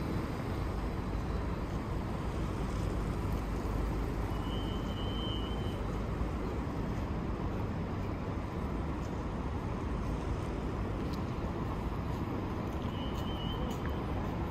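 City street traffic: a steady rumble of passing road vehicles, with two short high-pitched tones, one lasting a second or two and a shorter one near the end.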